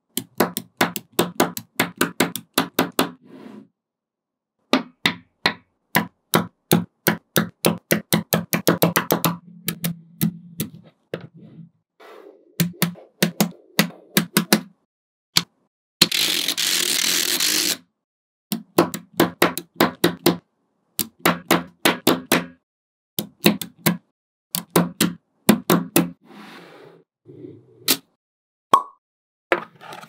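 Small magnetic balls clicking together as they snap into place, in quick runs of sharp clicks with short pauses between. About halfway through comes a short rushing hiss of under two seconds.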